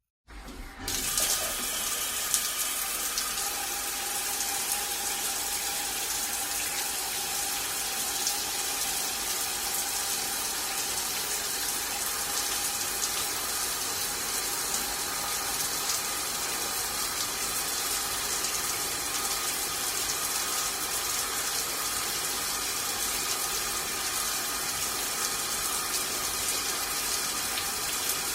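Steady rush of running water, starting abruptly within the first second and holding even throughout.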